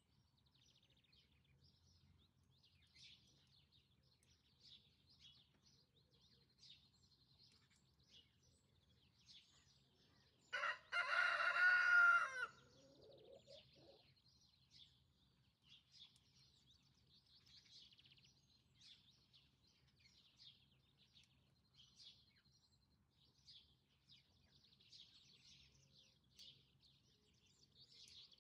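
A rooster crows once, about ten seconds in: a loud call of about two and a half seconds that starts with a short note and trails off at the end. Small birds chirp faintly throughout.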